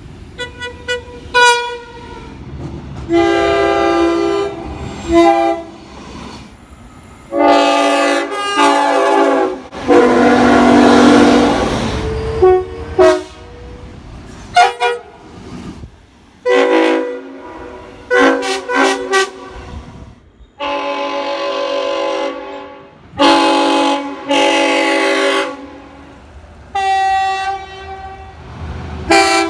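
Train horns sounding a long string of blasts, each a chord of several tones, with quick short toots and longer blasts of one to two seconds following one another with gaps between. About a third of the way in, one long blast sounds over a loud rush of passing-train noise.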